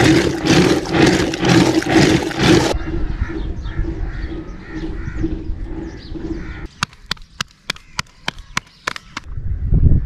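Rhythmic sloshing and splashing of a hand-pulled wooden churn stick spun back and forth through yogurt in a clay pot, about two and a half strokes a second, for about three seconds. Then birds chirping over a low steady tone, and near the end a quick run of about eight sharp clicks.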